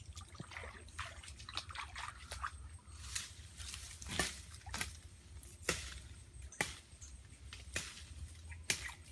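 Shallow muddy stream water sloshing and splashing as a person wades in it and works a woven bamboo fish trap. Sharp splashes come about once a second from around three seconds in.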